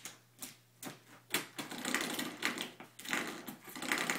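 Spring door stop being sprung repeatedly by a puppy, giving a quick series of short twanging rattles, about eight in four seconds.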